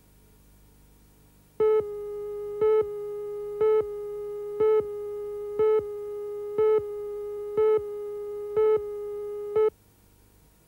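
Countdown leader tone: a steady beep with a louder pip every second, nine pips in all, marking the seconds of the countdown before the programme. It starts suddenly and cuts off abruptly about a second before the end.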